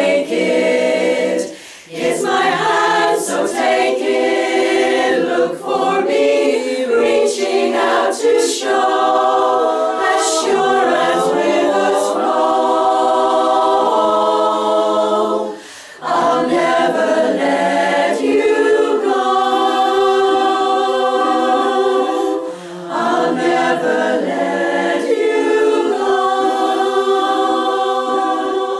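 Women's barbershop chorus singing a cappella in close four-part harmony, sustained chords broken by short pauses between phrases about two seconds in and again about halfway through.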